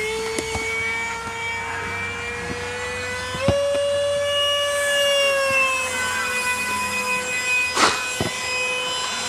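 Electric RC model plane in flight, its motor and propeller giving a steady whine that jumps up in pitch about three and a half seconds in and eases back down as the throttle changes. A brief rustle sounds near the end.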